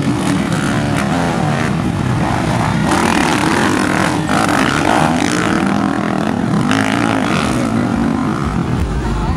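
Several motocross dirt bikes racing together over a muddy track, their engines revving up and down under hard acceleration.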